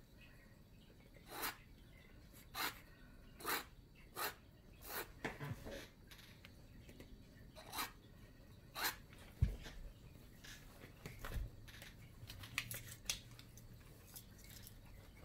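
Metal palette knife scraping and spreading thick acrylic paint across a stretched canvas in a series of short strokes, most of them in the first nine seconds. A single low thump about nine and a half seconds in.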